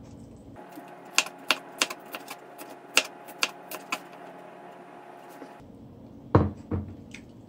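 A string of sharp, irregular clicks and taps over a faint steady hum, then two louder, deeper knocks near the end.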